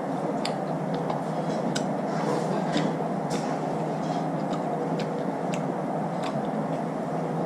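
Scattered light clicks and taps, about ten at irregular moments, over a steady background hum.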